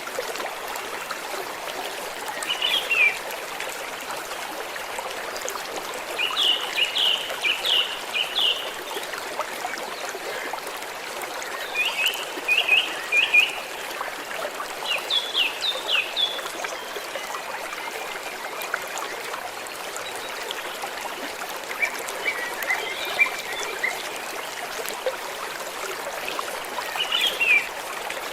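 Water trickling and flowing steadily in a small stream. Six short runs of rapid, high chirps come at irregular intervals over it.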